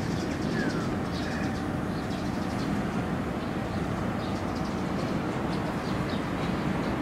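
Steady low rumble of outdoor background noise, with small birds chirping faintly and repeatedly over it.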